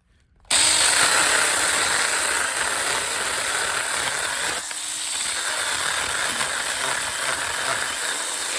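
Saker 20-volt cordless mini electric chainsaw switching on about half a second in and running steadily as it cuts through a small log, with a short dip in loudness near the middle.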